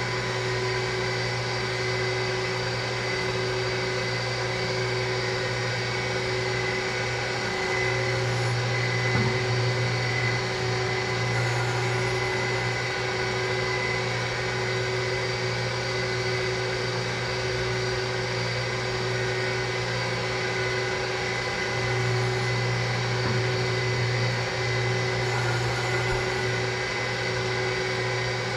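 Surface grinder running steadily with its grinding wheel spinning as it grinds the magnetic chuck: a constant motor hum and whine that swells a little twice, about a third of the way in and again near the end.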